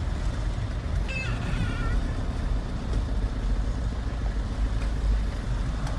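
Steady low engine and road rumble heard from inside a moving car, with a brief high falling squeak about a second in.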